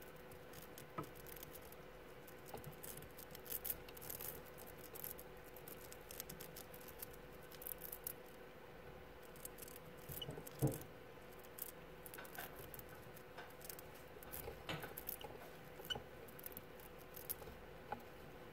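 Pet mice nibbling a cheese puff held between fingers: faint, rapid crunchy clicks of small teeth gnawing. A steady faint hum runs underneath, and there is one louder knock about ten and a half seconds in.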